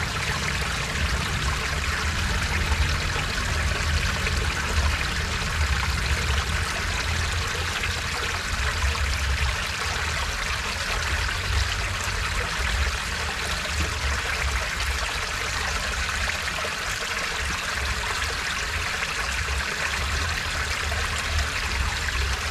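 Water running steadily over a small irrigation weir and through its sluice gate, a constant rushing, splashing noise with a low rumble beneath it.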